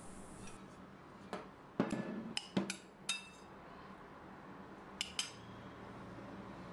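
Metal spoon clinking against a glass bowl while stirring cooked pearl couscous: a cluster of short, ringing clinks in the first few seconds, then two more about five seconds in.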